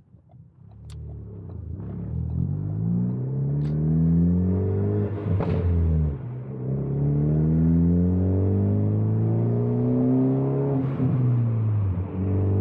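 Turbocharged Ford Focus ST with a catless downpipe and track exhaust, accelerating through the gears. The engine note climbs steadily, falls at an upshift about five and a half seconds in, climbs again, and falls at a second upshift near the end.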